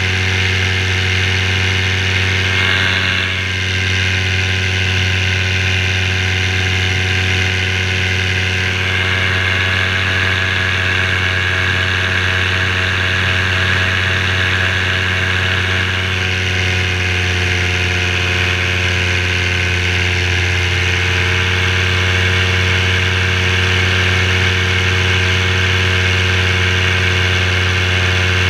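Parajet V3 paramotor engine and propeller running steadily in flight, a constant drone that holds one pitch throughout, with a brief small dip about three seconds in. The engine is freshly tuned up after a rebuild and running well.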